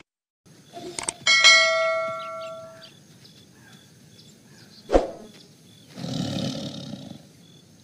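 End-card sound effects: a click, then a bright ringing bell chime that dies away over about a second and a half. About five seconds in comes a sharp knock, then a tiger roar lasting about a second.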